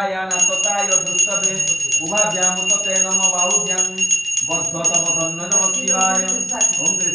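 A small puja hand bell rung rapidly and continuously, with a voice chanting Sanskrit mantras over it in long phrases.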